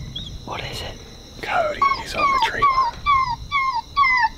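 Electronic predator caller playing a repeated whining distress cry, about three short falling notes a second, to lure varmints.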